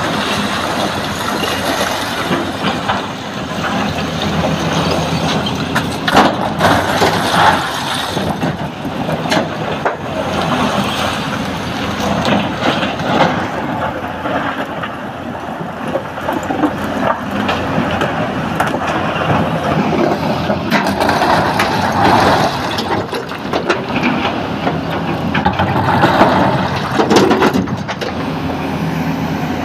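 A hydraulic excavator's diesel engine runs under load while its bucket scrapes through broken rock. Several times the rock spills and rattles, including a load of stones dumped into a truck bed near the end.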